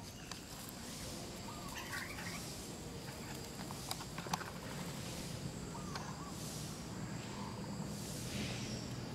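Quiet outdoor ambience with a few faint, short animal calls and a couple of light clicks.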